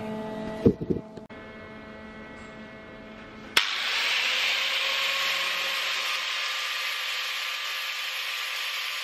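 A couple of light knocks, then from about a third of the way in a Guild angle grinder's abrasive disc grinding rust off a steel sprocket: a steady, loud hiss of abrasive on metal.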